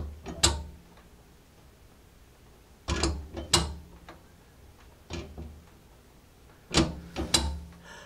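Combination dial and handle of an old steel safe being worked: the handle is pulled against the locked bolt and the dial turned between tries. This gives short clusters of metal clacks and clicks four times, with quiet between. The lock stays shut on each try of the combination.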